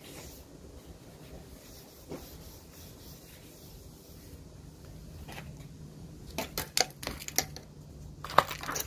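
Cloth rubbing along a wooden tool handle, then a run of sharp clicks and knocks in the last few seconds, the loudest near the end, as a plastic bottle is handled against the tool.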